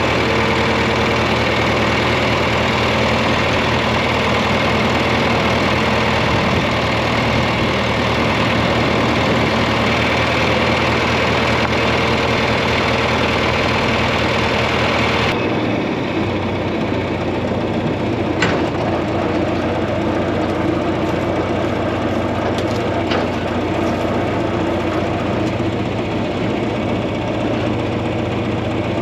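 Tractor engine running steadily as it tows a grain grinder-mixer to the pig feeders. About halfway through the sound abruptly turns duller as the higher hiss drops away, and a couple of brief clicks follow.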